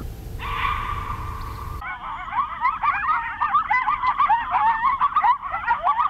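A gray fox gives one drawn-out, high screech from about half a second in, cut off abruptly just under two seconds in. Coyotes then take over with a chorus of rapid, high-pitched yips and barks, many quick rising and falling calls overlapping.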